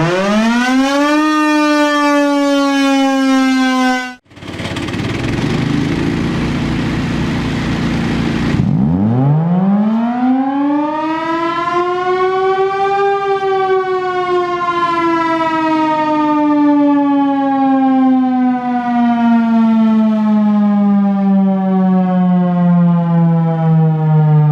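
Federal Enterprises Thunderbolt 1000 siren sounding: a wail rises quickly and then slowly falls, and is cut off sharply about four seconds in. A few seconds of rushing noise with a low hum follow. Then the siren winds up again over about four seconds to a high wail and slowly winds down.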